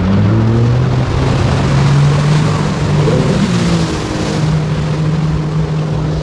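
Jet ski engine running on the water, its pitch climbing over the first two seconds and then holding steady, over a constant hiss.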